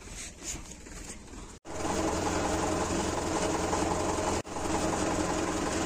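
Tractor diesel engine running steadily at an even speed. It comes in abruptly about a second and a half in, with a brief break about four and a half seconds in.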